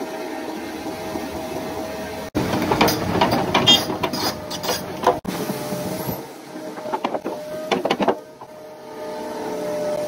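A backhoe loader's diesel engine running steadily, with bursts of metallic clanks and knocks from the machine working. The sound changes abruptly about two and five seconds in.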